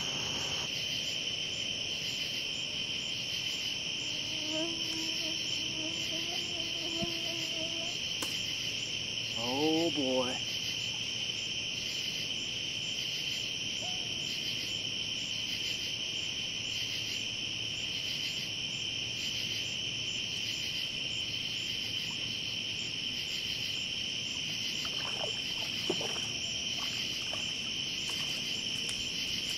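Crickets singing in a steady, unbroken night chorus. A brief wavering sound stands out about ten seconds in.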